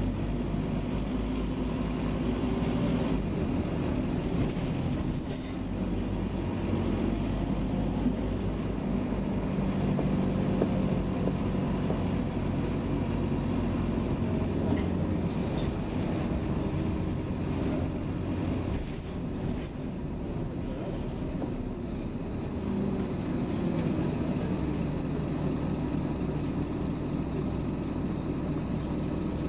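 Scania Omnicity double-decker bus engine running as the bus drives, a steady low drone whose deepest note eases off about halfway through.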